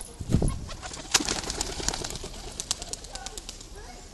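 A white peacock's fanned train rattling as it shivers its feathers in courtship display: a quick, irregular run of dry clicks, with a low thump about half a second in.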